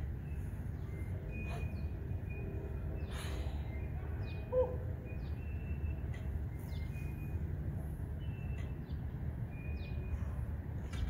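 Small birds chirping with short, thin whistled notes over a steady low rumble, and one brief louder note about four and a half seconds in.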